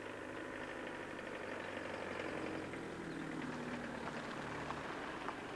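A white minivan's engine and tyres as it drives up a paved road and passes close by, a little louder as it draws level.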